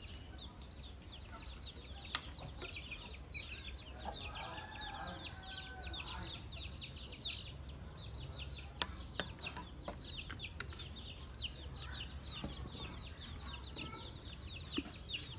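Domestic chicks peeping without pause in a rapid stream of short, high chirps, with hens clucking among them. A few sharp clicks stand out now and then.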